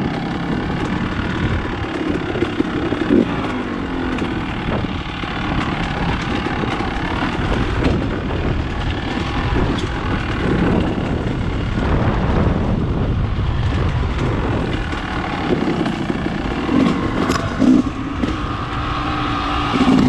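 Dirt bike engine running at low speed on a rough trail, the revs rising and falling with the throttle.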